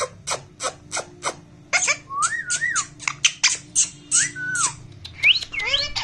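Indian ringneck parakeet giving whistled calls that rise and fall, three of them, amid a run of sharp, quick clicks.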